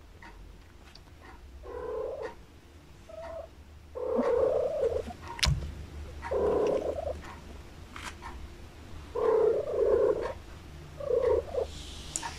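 Domestic cat yowling in a series of about five low, drawn-out calls, each lasting under a second, the calling of cats at mating time. One sharp knock comes about halfway through.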